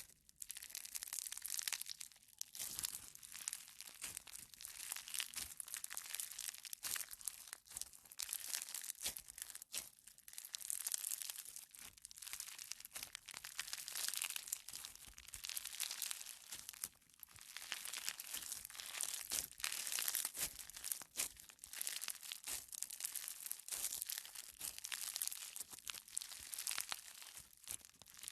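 A knife cutting and carving dry bar soap: a crisp crunching and crackling as the blade shaves and breaks the soap, coming in repeated strokes with short pauses between them.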